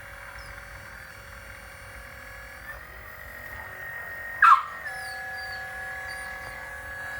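Brushless hydraulic pump of a 1/12-scale PC360 RC excavator whining steadily at a high pitch, the whine stepping up and down as the hydraulics take and release load. A dog barks once, loudly, about four and a half seconds in.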